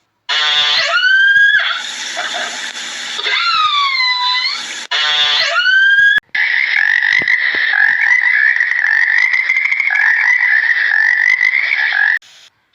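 A series of animal calls: three short calls that glide up or swoop down in pitch, then from about six seconds in a long, high, steady call lasting about six seconds.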